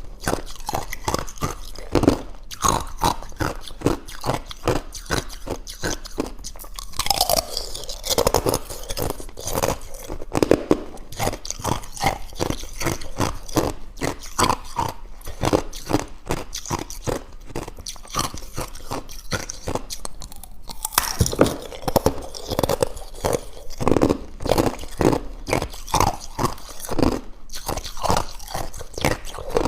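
Thin ice being bitten and chewed close to the microphone: a continuous run of crisp crunches, several a second.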